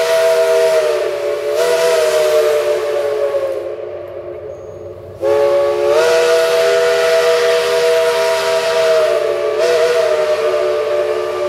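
Steam locomotive's chime whistle blowing long blasts of a three-note chord. The pitch sags and wavers as it is played; the first blast fades away about four seconds in, and a second starts sharply about five seconds in and holds.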